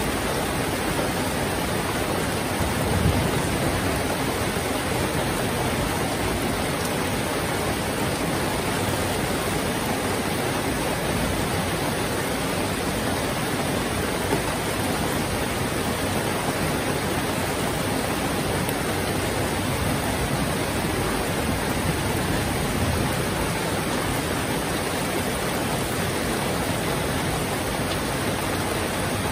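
Heavy rain falling steadily, a dense, even hiss, with a brief low thump about three seconds in.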